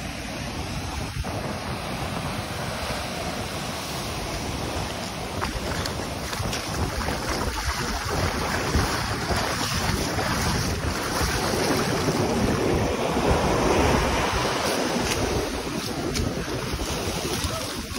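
Wind blowing on the microphone over the rush of breaking surf and foam washing up the beach.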